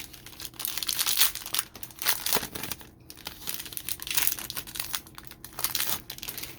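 Plastic trading-card pack wrapper being crinkled and torn open, in two long stretches of dense crackling with a short pause about three seconds in.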